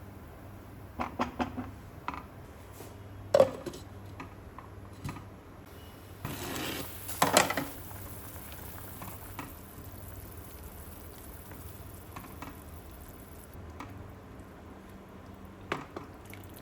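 Kitchen utensils clinking and knocking against cookware, in scattered strokes: a few light clinks about a second in, a sharp knock a little later, and the loudest clatter about seven seconds in. A low steady hum runs underneath.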